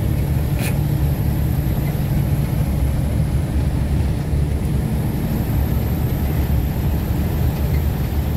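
Steady low drone of a tractor-trailer's engine and road noise heard inside the cab while cruising, with one brief light click near the start.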